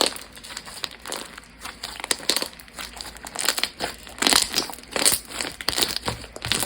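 Bean bag slime, slime packed with small foam beads, being squeezed and worked, giving dense, irregular crunchy crackles and clicks that are busiest in the middle.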